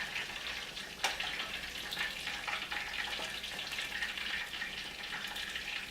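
Food frying in hot vegetable oil: a steady sizzle with small crackling pops, and one sharper click about a second in.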